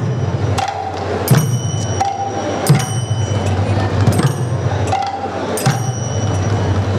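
An ensemble of mridanga drums plays a steady, fast rhythmic pattern with kartals and whompers (hand cymbals) ringing along. A bright ringing cymbal stroke recurs about every second and a half over the continuous drumming.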